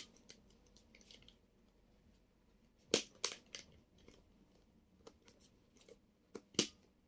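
Scattered sharp plastic clicks from fingers turning the dials of a combination code lock on a bag's zipper pocket, the loudest about three seconds in and another near the end.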